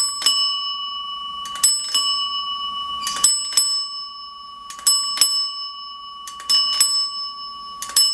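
Bicycle bell rung in quick double rings, about one pair every second and a half, with three rings in a row near the end. Each ring leaves a lingering metallic tone.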